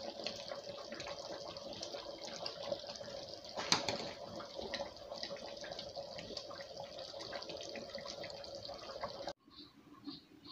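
Soup being ladled from a metal pot into a bowl: a steady watery hiss with scattered clinks, one louder clink about four seconds in, under a faint steady hum. The sound cuts off abruptly near the end.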